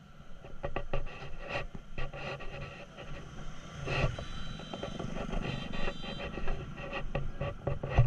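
Crackling, scraping rub noise on the microphone over a low rumble, recorded from a moving motorbike in street traffic.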